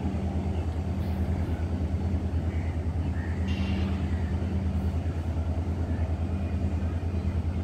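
Locomotive of an express train approaching slowly into a station, its engine running with a steady low pulsing hum.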